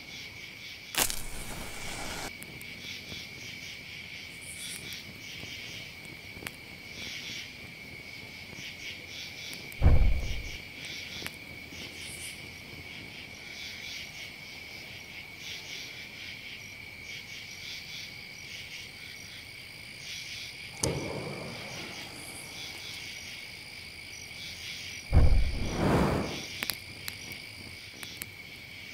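Crickets chirping in a steady night chorus. It is broken by a few louder noises: a low thump about ten seconds in, a rushing noise around twenty-one seconds and another loud, low rush around twenty-five seconds.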